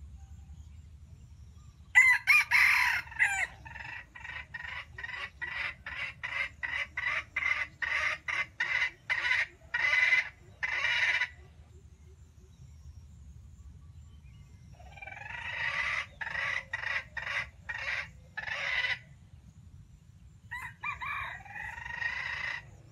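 Red junglefowl rooster calling: a crow about two seconds in, then a long run of short, sharp clucks about two a second that speed up, a second run of clucks, and another crow near the end.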